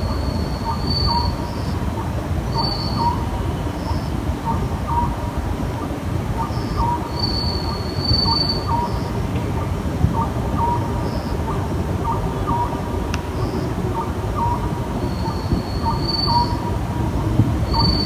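Oriental scops owl calling over and over at night, a short hoot repeated roughly every half second to second. Under it runs a steady low rumble, and a drawn-out high squeal cuts in several times.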